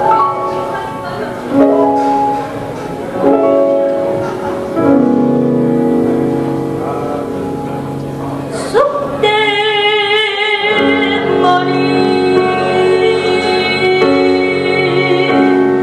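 Live music: an instrumental introduction of separate melodic notes, then about nine seconds in a woman starts singing into a handheld microphone over the accompaniment, holding long notes with vibrato.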